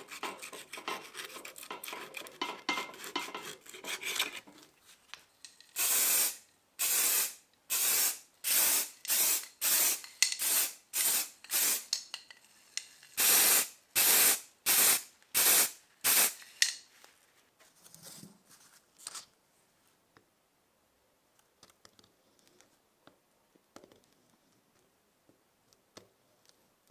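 Masking tape crackling as it is cut and trimmed with a utility knife blade, then an aerosol spray can hissing in about fourteen short bursts, in two runs with a brief pause between. The spray bursts are the loudest sound; faint knife scraping follows near the end.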